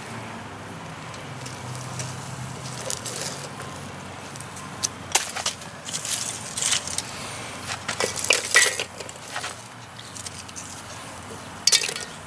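Split fatwood sticks clattering against one another and the metal grill grate as they are stacked over a burning piece of fatwood on charcoal: a string of sharp knocks and clicks, busiest through the middle and again near the end.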